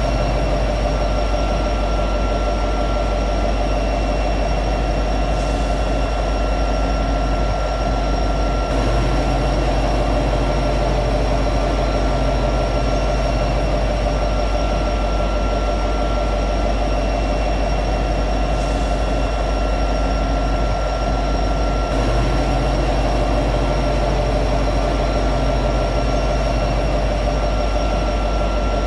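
EMD SD70ACE diesel-electric locomotive's 16-cylinder two-stroke prime mover running at high idle: a steady heavy rumble with a constant high whine over it.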